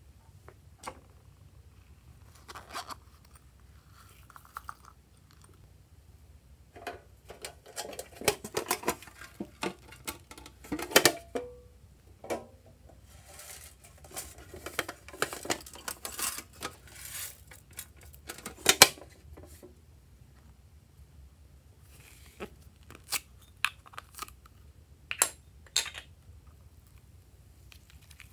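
Small plastic container being handled and opened by hand: scattered plastic clicks, taps and crinkles. They come in two busy stretches in the middle, with the sharpest clicks about eleven and nineteen seconds in, and a few more clicks near the end.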